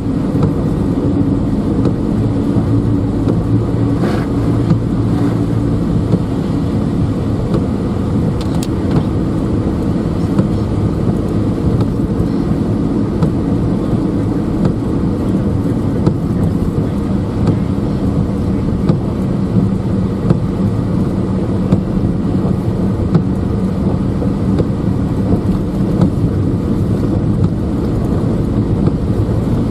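Steady engine and road noise heard from inside a moving vehicle: a constant low rumble with a faint engine hum.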